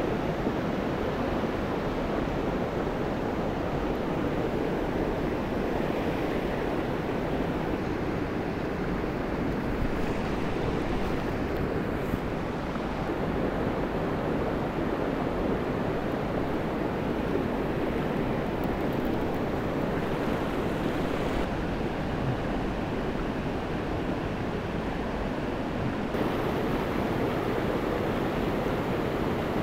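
Mountain stream water rushing steadily, an even unbroken hiss of flowing water.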